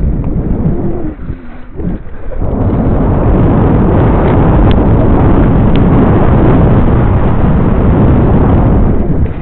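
Wind rushing over the microphone and tyres rumbling over loose gravel as a bicycle descends a steep dirt track at speed. The noise builds about two and a half seconds in, stays loud and steady, and cuts off suddenly near the end.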